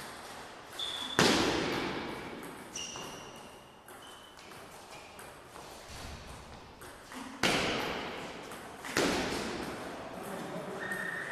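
Table tennis rally in an echoing sports hall: the celluloid ball clicking off bats and table, short high squeaks of shoes on the floor, and three loud thuds that ring on in the hall, about a second in, around seven and a half seconds in and nine seconds in.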